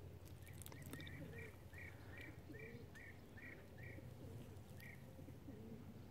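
A bird calling in a run of about nine short, repeated notes, two or three a second, stopping about five seconds in, over a faint low steady hum.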